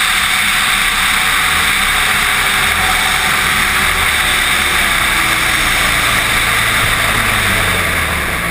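Snowmobile engine running steadily under a loud, even rushing noise.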